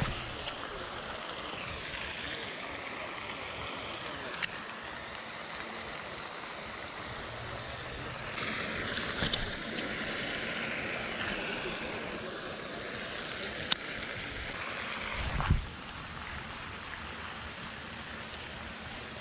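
Steady outdoor background noise, with three sharp clicks spread through it and a dull thump about three-quarters through.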